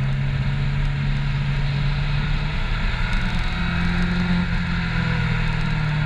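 Honda CBR600 F4i's inline-four engine running under way, a steady drone with wind noise rushing over the bike-mounted camera. The engine note rises a little about three and a half seconds in and settles again about a second later.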